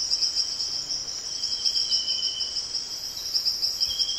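Forest insects calling: a steady, fast-pulsing high trill, with a lower call coming in short spells of about a second, several times.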